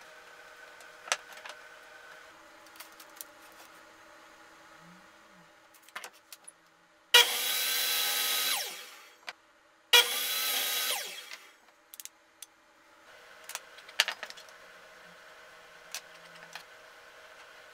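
Miter saw cutting wood strips twice, about seven and ten seconds in: each time the motor starts abruptly, runs through the cut for about a second and a half, then winds down with falling pitch. Light knocks and clicks of wood being handled come before and after the cuts.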